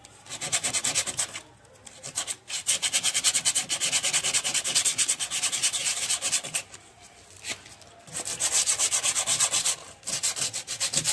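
120-grit sandpaper scraping over hardened body filler on a car panel in fast, even back-and-forth strokes. It comes in several bouts with short pauses between them, the longest bout lasting about four seconds.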